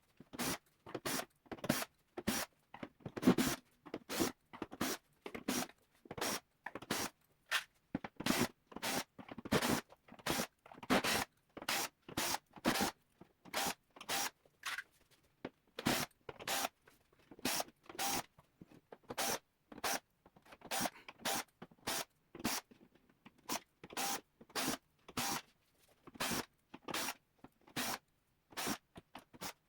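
Screws being backed out of a synthesizer's bottom cover with a cordless screwdriver, heard as a long run of short scraping, zipper-like bursts, about two a second, with brief quiet gaps between them.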